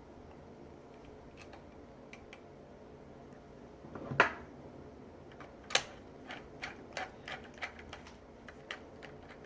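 Clicks and knocks of hand work on a reciprocating saw being screwed back together: two sharper knocks about four and six seconds in, then a run of lighter, irregular clicks.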